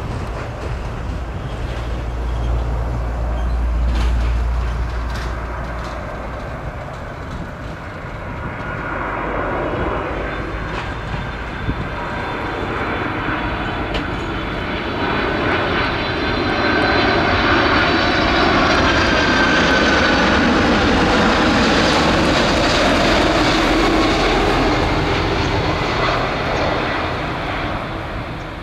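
Boeing 747-400F freighter's four jet engines on landing approach: a roar that swells as the aircraft passes close by, with high whining fan tones that drift slightly in pitch. It is loudest over the second half and eases off near the end as the jet flares over the runway.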